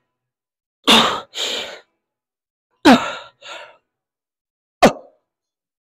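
A man's forceful exhales with a falling grunt, one with each rep of a lying leg curl, three about two seconds apart. The first two are each followed by a quick breath in; the last is short.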